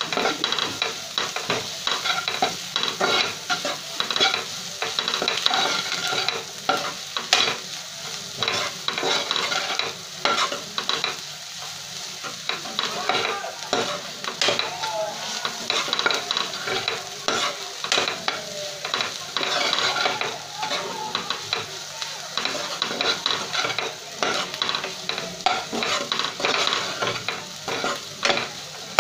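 A metal spoon scraping and stirring onion masala in a non-stick kadhai, with the onions sizzling as they sauté. The scraping comes in quick, irregular strokes.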